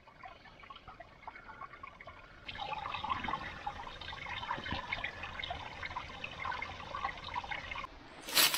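Small shallow forest stream trickling and babbling over stones and fallen leaves, faint at first and louder from about two and a half seconds in. Near the end, a brief crunch of a footstep in dry leaf litter.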